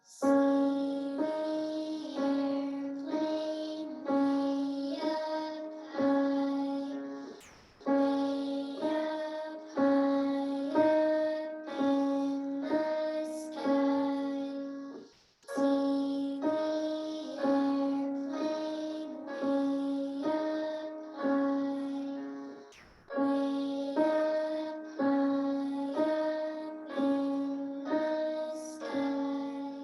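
A simple piano tune played on the two neighbouring black keys, alternating back and forth between the two notes about once a second, along with a recorded accompaniment. It runs through twice, with a short break about halfway.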